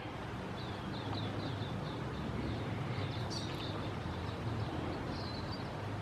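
A quick run of short high chirps from a small bird, about five a second, then a few scattered chirps, over a steady low rumble of background noise.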